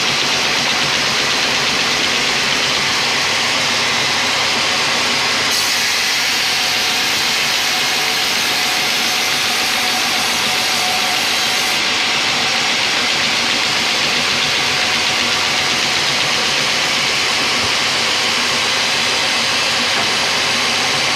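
Band sawmill blade cutting lengthwise through a teak log: a loud, steady, hissing saw noise with the machine running underneath. For several seconds about a quarter of the way in it turns brighter and hissier, then settles back.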